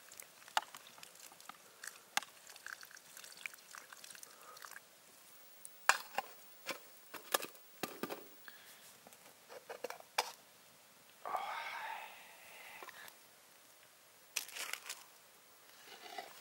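Scattered light clinks and knocks of an aluminium mess tin and cooking gear being handled on a grill. A short spell of noise comes about eleven seconds in and another near the end.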